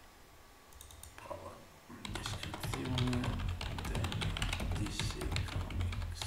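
Typing on a computer keyboard: a quick run of key clicks that starts about a second in and is densest from about two seconds on, over a steady low hum.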